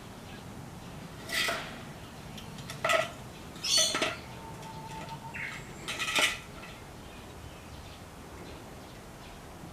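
Hollow bamboo-tube feeder knocking and clattering about four times as mandrills handle it, trying to get the food out.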